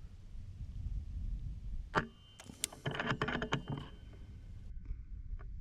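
FX M3 PCP air rifle fired once about two seconds in, a single sharp crack, followed by about a second and a half of rapid clicking and rattling, over steady low wind rumble on the microphone.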